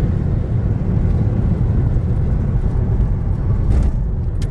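Steady low rumble of road and engine noise inside a car travelling at highway speed.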